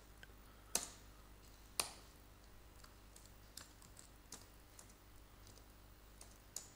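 Faint, sparse keystrokes on a computer keyboard, single keys pressed a second or more apart, the two clearest about one and two seconds in, over a low steady hum.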